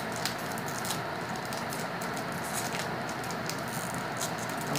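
Pokémon trading cards and their foil booster-pack wrapper being handled: a scatter of short crinkles and clicks over a steady background hiss.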